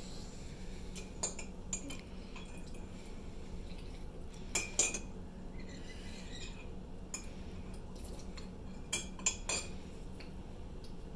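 A metal spoon clinking against a ceramic mug as a child stirs hot chocolate: scattered light clinks, a couple early on, a few about halfway through and a quick run of three near the end, over a steady low hum.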